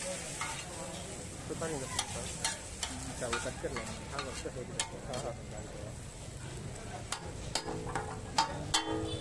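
Metal spatula stirring and scraping beef pieces on a large flat griddle, with irregular sharp clanks of metal on metal over a steady sizzle of the meat frying.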